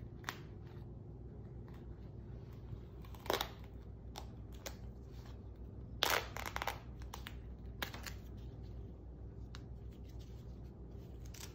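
Adhesive tape being peeled off an IV catheter site by gloved hands: a few short crackling rips and rustles, the loudest about three and six seconds in, over a low steady hum.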